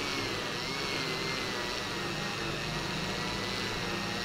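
Pro Cut Hero handheld rotary tool running with a felt polishing wheel fitted: a steady high motor whine that sags slightly in pitch.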